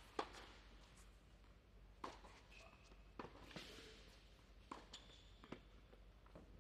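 Faint, scattered knocks of tennis balls bouncing on an indoor hard court, about half a dozen, with a couple of brief squeaks.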